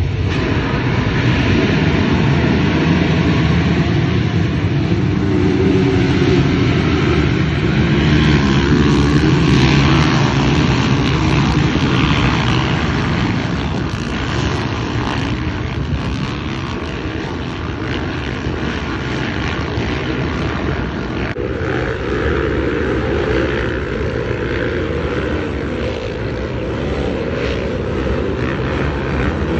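450-class motocross bike engines running hard, loud and continuous, with the pitch rising and falling as the bikes rev. The sound changes abruptly about 21 seconds in.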